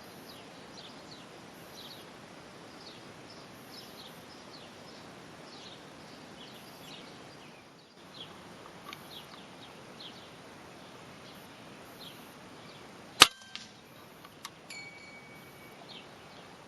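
Small birds chirping over and over against a steady outdoor hiss, then a single sharp rifle shot about thirteen seconds in, followed by a few faint clicks and a brief high ringing tone.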